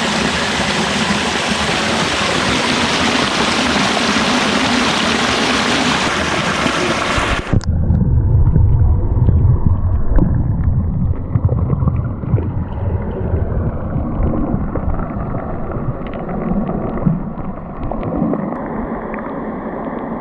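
A steady rush of falling water from a waterfall into a pool. About seven and a half seconds in, the microphone goes underwater: the hiss cuts off suddenly and becomes a muffled low rumble with scattered knocks.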